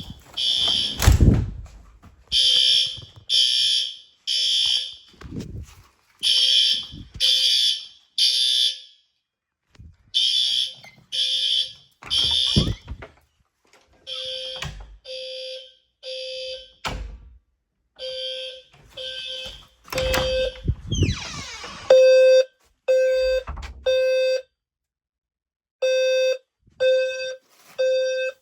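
Fire alarm sounders beeping in the temporal-three evacuation pattern: three half-second beeps, a pause, then three more. A high, shrill piezo tone gives way about two-thirds of the way through, after a brief falling sweep, to a lower, purer beep in the same rhythm. A few sharp knocks fall between the beeps.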